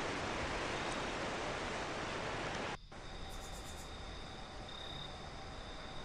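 Outdoor nature ambience: a steady broad hiss that cuts off abruptly about three seconds in, giving way to quieter background with a steady high insect trill and a brief rapid high chirping just after the change.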